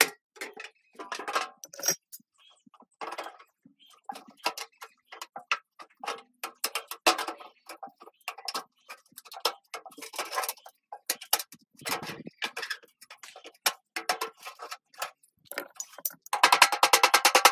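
Thin sheet steel being cut with tin snips and bent and tapped with a small hammer: irregular sharp clicks and clanks, then a fast run of light hammer taps near the end.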